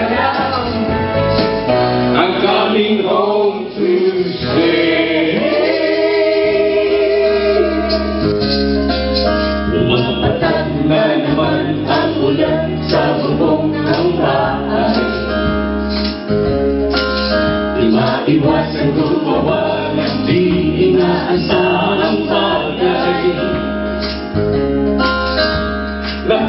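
A group of men and women singing a Filipino pop (OPM) medley together into microphones, with electric guitar, tambourines shaken along and a steady beat over a running bass line.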